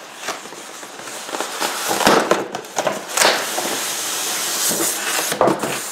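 Cardboard packaging box being opened by hand: cardboard scraping and rubbing, with sharp crackles about two seconds in, about three seconds in and near the end.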